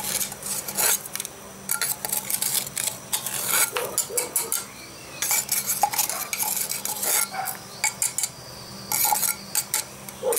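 Small spice jar of garlic powder shaken over a bowl, making bursts of rattling and clicking as the powder is knocked out through the lid.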